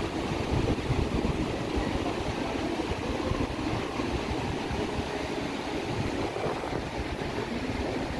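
Steady low rumble of wind buffeting the microphone, over the continuous rush of surf breaking on the beach.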